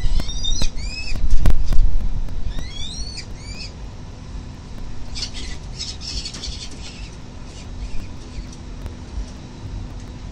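Peregrine falcons calling at the nest: two short runs of high, arching squeaky calls in the first four seconds, then a burst of harsh rasping calls about five to seven seconds in. A steady low rumble of wind or city noise runs underneath.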